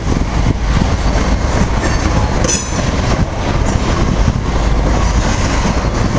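Covered hopper cars of a freight train rolling past: a steady rumble of steel wheels on the rails with scattered clicks, and a brief high wheel squeal about two and a half seconds in.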